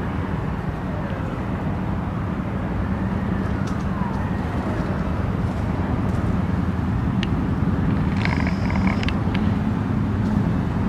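Steady road traffic noise, a continuous low rumble of passing cars, with a brief higher-pitched sound about eight seconds in.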